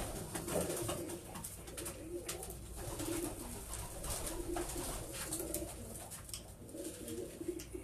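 Racing pigeons cooing: a run of low, repeated coos, one after another, with scattered light clicks and scuffs.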